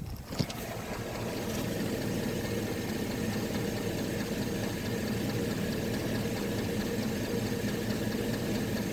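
2006 Chevy engine coming up to a steady idle within the first second, with the knocking the owner calls piston slap.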